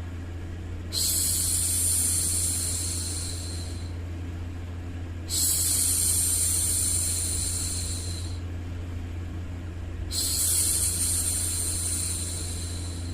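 A woman's voice making long hushing "shhh" sounds to soothe a baby, three times, each about three seconds long. Underneath is a steady low hum.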